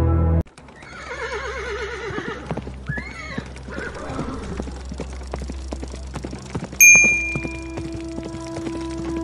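Music cuts off just after the start, then a horse whinnies with a wavering call and hooves clip-clop in an uneven run of knocks. About seven seconds in, a single bright bell strike rings out, the loudest sound, and fades over about a second.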